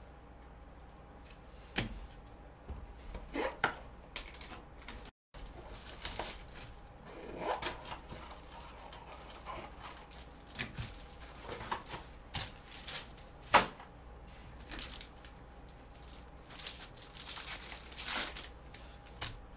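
Gloved hands handling trading cards, rigid plastic card holders and a cardboard hobby box: sharp plastic clicks and taps mixed with short bursts of rustling, crinkling and tearing, over a faint steady hum. One click about two-thirds of the way through is the loudest.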